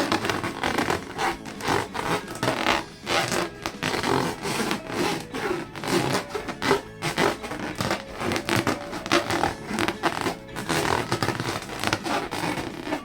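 Rubber balloons being rubbed and squeezed by hand: a fast, uneven run of squeaky rubbing and scraping strokes.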